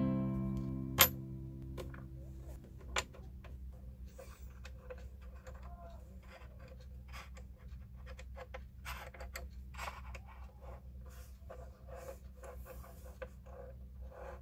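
Light clicks and taps of silver bracelet links being set down and nudged into line on a wooden bench, with two sharper clicks about one and three seconds in, over a steady low hum. A guitar chord rings out and fades over the first two seconds.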